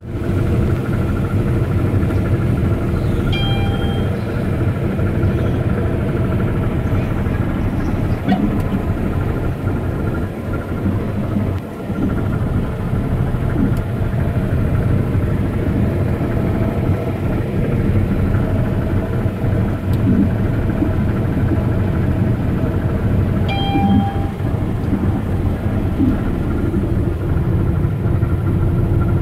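Heavy farm machinery running steadily, its engine holding one constant pitch. A brief high tone sounds twice, a few seconds in and about three-quarters of the way through.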